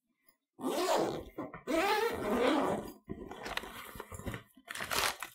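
Heavy-duty zipper on a padded soft gun case being unzipped, in three or four rasping pulls starting about half a second in.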